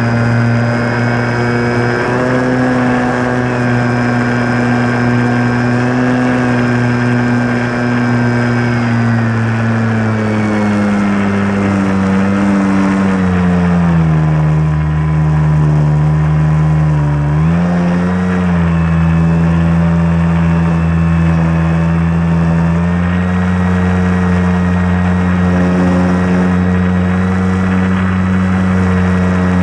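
RC Carbon Cub model plane's motor and propeller running steadily, heard from on board. About a third of the way through, the pitch slides down as the throttle eases back and dips briefly. A little past halfway it climbs again and holds steady.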